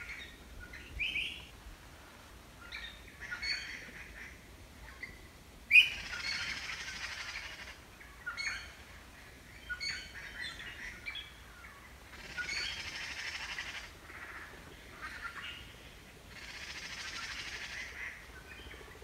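Giant panda cubs wrestling and giving high, squeaky chirps and longer squealing bleats, several of them each lasting a second or two.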